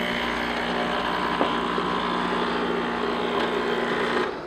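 Breville Infuser espresso machine's steam wand hissing steadily, with a low steady hum underneath, as it is purged and wiped clean after steaming milk. The hiss cuts off sharply near the end.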